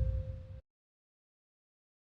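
Background music fading out with a low rumble and one held note, cutting off about half a second in; then digital silence.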